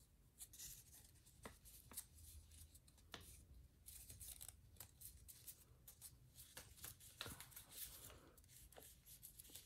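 Faint rustling and soft crinkling of paper being folded and creased by hand, in scattered short ticks.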